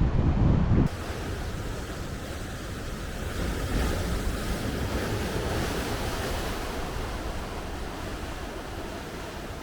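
Sea surf washing ashore in strong wind, a steady hiss that swells a few seconds in and then slowly fades. It opens with under a second of loud low rumble that cuts off sharply.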